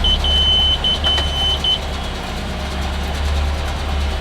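Tractor engine running steadily while working the round baler, with the baler monitor beeping a high, steady tone in long beeps with short gaps for about the first second and a half. The beeping is the bale-full warning as the bale reaches about 90%.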